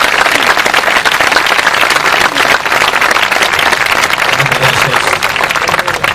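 Audience applauding at the end of a song: dense, steady clapping that starts to die down near the end.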